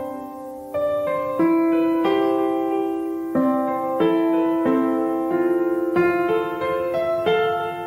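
Background piano music: a slow, gentle melody over chords, with a new note or chord struck about once a second, each ringing and fading.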